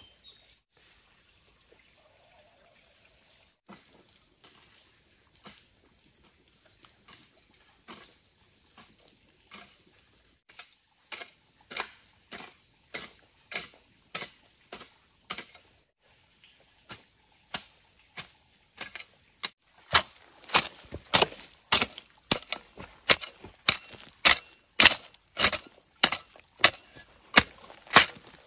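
Repeated chopping strokes with a blade, about two a second. They start faint, grow louder, and ring out as hard, sharp strikes from about two-thirds of the way in.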